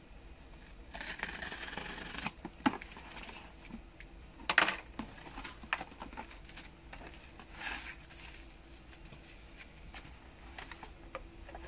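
Cardboard shipping box being opened by hand: a cutter drawn along the packing tape, then sharp rips and scrapes as the tape and flaps are pulled open, the loudest about four and a half seconds in. After that come rustles and small clicks of cardboard and bubble wrap as the contents are lifted out.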